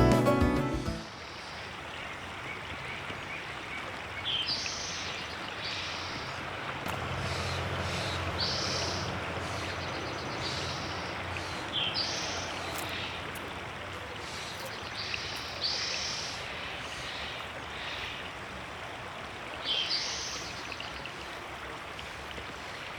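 River water running steadily, with a bird giving short high calls every few seconds.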